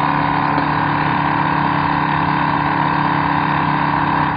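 Portable mercury vapour analyzer's built-in pump running steadily as it draws an air sample: an even motor hum with a constant whine.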